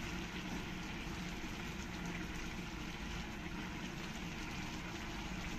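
Pot of vegetable pulao simmering on the stove, the water among the basmati rice bubbling in a steady, even patter as it cooks down.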